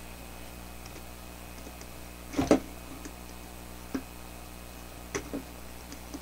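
Knocks and light clicks of a plastic LED light bulb being handled and worked at its glued dome seam: a quick double knock about two and a half seconds in, then a few single lighter clicks.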